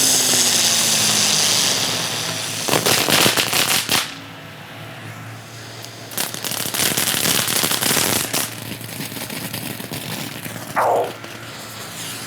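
Small ground-spinner fireworks going off: a loud hiss at the start, then two runs of rapid crackling pops, about three seconds in and again from about six to eight seconds. A short falling whistle comes near the end.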